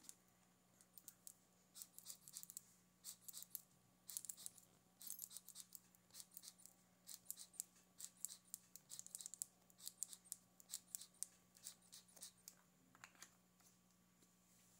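Aerosol can of edible silver food spray hissing in many short, faint puffs, coming in quick irregular clusters.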